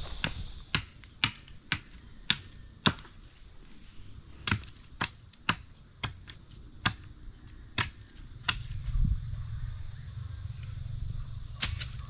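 A series of sharp knocks, about two a second, coming more sparsely after a few seconds and stopping about eight and a half seconds in, followed by a low steady rumble and two more knocks near the end.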